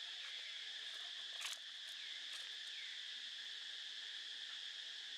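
Insects droning steadily in a high, even chorus, with one sharp click about a second and a half in.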